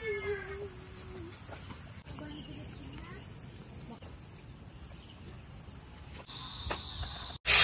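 Steady high-pitched chirring of an insect chorus, with a second, lower insect tone joining about six seconds in. A brief low drawn-out sound is heard near the start.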